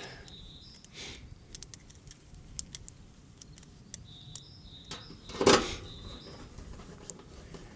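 Small clicks and ticks of screws being driven by hand into the model railway bridge's truss pieces, with a brief louder rustle about five and a half seconds in and a few faint high chirps now and then.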